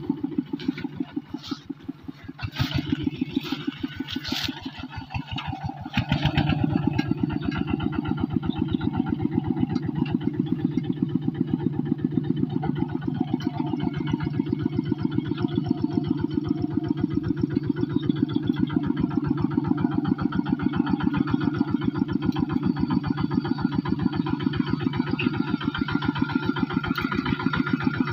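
Single-cylinder diesel engine of a two-wheel walking tractor chugging with rapid, even firing pulses as it pulls a loaded trailer over muddy ground; it is fainter for the first few seconds, with a few sharp clicks, then steady and louder from about six seconds in.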